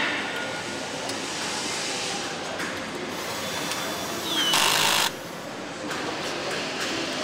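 Steady machine and tool noise of a truck assembly hall, with a short, loud hiss about four and a half seconds in.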